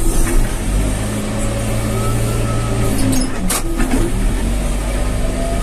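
Backhoe loader's diesel engine running steadily with a deep hum, while the machine works in the mud; a couple of sharp clanks sound a little past the middle, about half a second apart.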